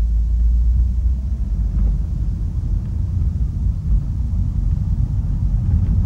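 Steady low rumble of a car driving along a road.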